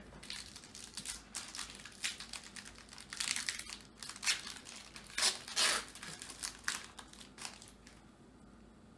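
Trading-card pack wrapper being torn open and crinkled in the hands, then the cards handled; irregular crinkles and rustles, loudest around five to six seconds in.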